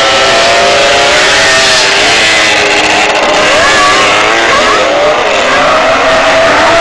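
Two-stroke speedway sidecar engines, among them a Suzuki GT750 triple, racing at full throttle. Several engine notes rise and fall over one another as the outfits accelerate and ease off.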